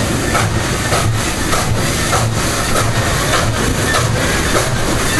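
Southern Pacific #2472, a 1921 Baldwin 4-6-2 Pacific steam locomotive, working slowly with a steady chuff of exhaust beats, a little under two a second.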